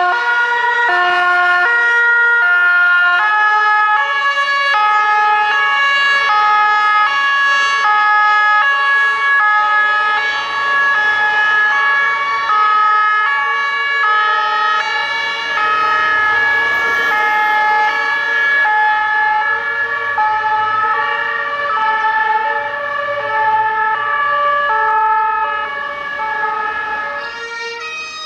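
Several German two-tone fire-engine sirens (Martinshorn) sounding at once, each switching between a high and a low note about once a second, overlapping out of step.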